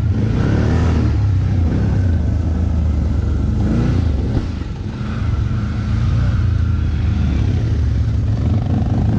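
ATV engine running and revving, with a brief drop in loudness about four and a half seconds in.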